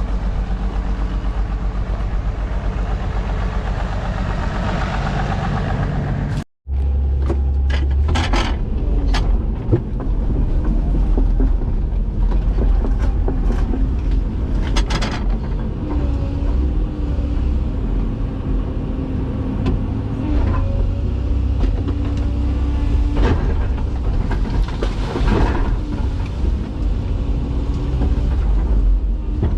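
Komatsu PC228 excavator working at clearing trees: the diesel engine and hydraulics run under load with a steady low rumble, broken by several sharp cracks and crashes. The sound cuts out for an instant about six seconds in.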